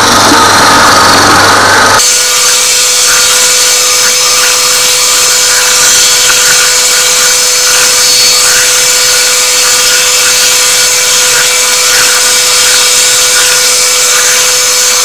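Bowl cutter running, its spinning knives chopping Leberkäse meat batter of beef, pork back fat and ice into a smooth emulsion. The sound is loud and continuous. About two seconds in it turns into a steadier, higher whir with one constant tone.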